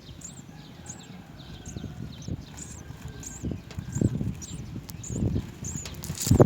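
Small birds chirping with short, high calls about once or twice a second, over low dull thumps that start about halfway in, the loudest near the end.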